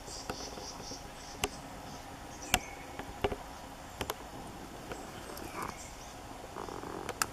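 Forest insects chirping in a fast pulsing trill that fades after about the first second, over a steady faint background. Several sharp single clicks are scattered through, louder than the chirping.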